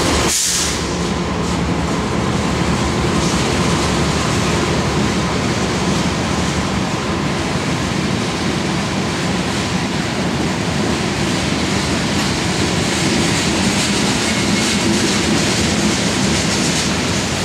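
Freight train of covered hopper cars rolling past at steady speed: a continuous rumble and clatter of steel wheels on the rails.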